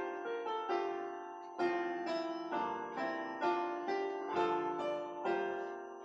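Piano playing a slow instrumental interlude in a worship song: chords and a melody, each note struck and then fading.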